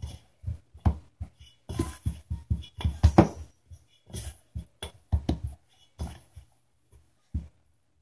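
Hands mixing pie-crust dough, working cold water into the flour, in a stainless steel bowl: irregular knocks and scrapes of fingers and hands against the metal. They are busiest in the middle and thin out near the end.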